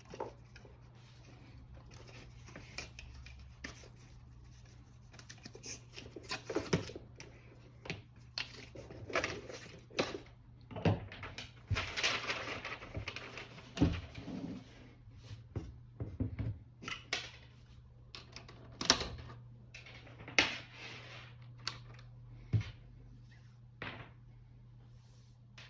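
Handling noises from unboxing a MacBook Pro and its packaging: scattered light taps, clicks and knocks, with a longer rustle of packaging around the middle, over a low steady hum.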